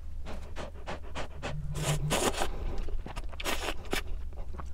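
Ramen noodles slurped close to the microphone: two longer slurps, about two and three and a half seconds in, among quick sucking sounds and small clicks, with a short low hum near the first slurp.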